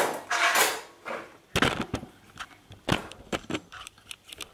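A camera tripod being set up and handled: a short scraping or sliding sound at the start, then a string of sharp clicks and knocks as it is locked and positioned.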